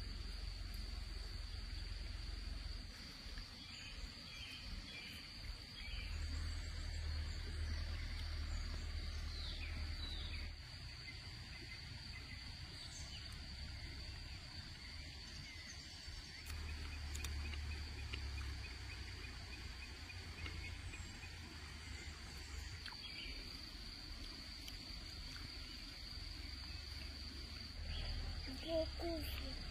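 Crickets trilling steadily in one continuous high note, over a low rumble, with a few faint short chirps.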